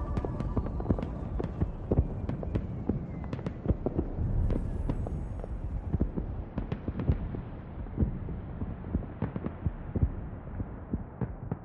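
Dense, irregular crackling and popping over a low rumble, growing duller as the high end fades out.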